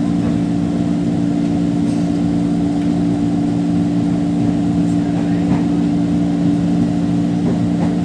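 KRL electric commuter train heard from inside the carriage while it runs along the track: a steady low hum over a broad rumble of running noise, with a few faint ticks.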